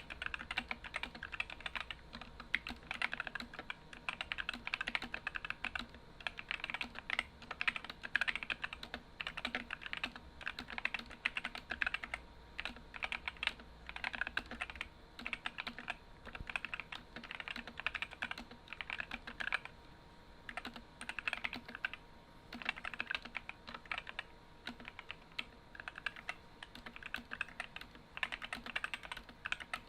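Continuous fast typing on an Epomaker SK64 mechanical keyboard fitted with stock, unlubed Gateron optical red linear switches and ABS keycaps: a dense, unbroken stream of key clacks.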